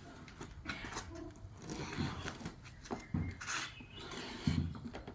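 Scratchy rustling and scraping, with light irregular knocks, as a cardboard firework assortment box is handled and opened.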